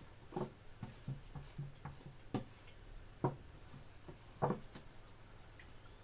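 A person eating, with irregular soft clicks and smacks of chewing and the mouth, a few of them louder.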